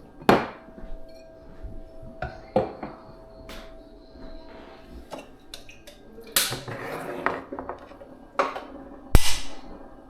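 Dishes and kitchenware being handled: a series of sharp knocks and clinks, with a longer clattering stretch past the middle and the loudest knock near the end.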